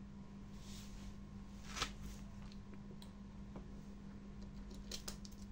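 Faint clicks and taps of a small festoon LED bulb's metal end caps being set against a battery's terminals to test it: one sharper click about two seconds in and a few light ticks near the end, over a low steady hum.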